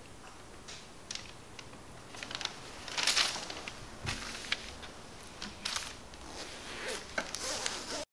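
Paper rustling and handling noises of items on a table: a series of short rustles and taps, loudest about three seconds in, then the sound cuts off suddenly at the end.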